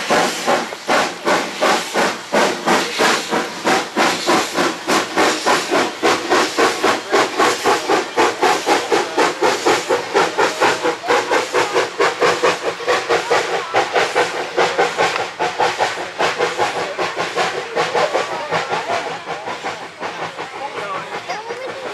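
Small coal-fired steam saddle-tank locomotive chuffing steadily under way, about three exhaust beats a second, growing fainter over the last few seconds as it pulls away.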